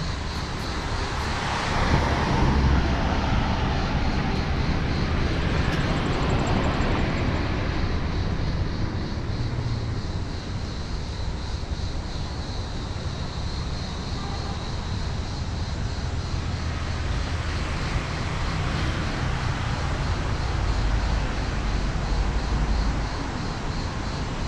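Street traffic passing by, a steady rush of engines and tyres that swells a couple of seconds in and again near the end, with a faint high-pitched buzz behind it.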